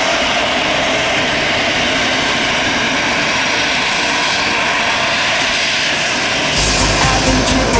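Airbus A319 airliner's jet engines: a loud, steady rushing jet noise, with a deep rumble coming in underneath near the end.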